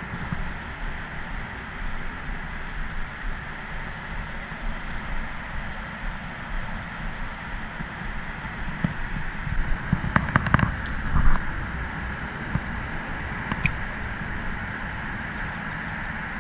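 Wind rumbling on the microphone, with a cluster of knocks and rustles from hands handling the catch and tackle about ten seconds in and a few single clicks later.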